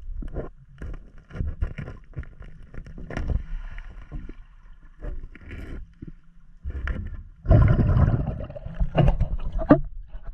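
Water noise on an underwater camera held by a scuba diver: irregular knocks and gurgling, then a louder rush of water and splashing near the end as he comes up to the surface.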